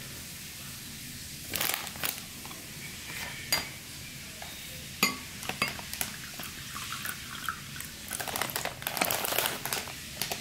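Dishes and cutlery clinking and clattering in sharp, scattered clicks over a steady low background hum, with a few seconds of hissing, rustling noise near the end.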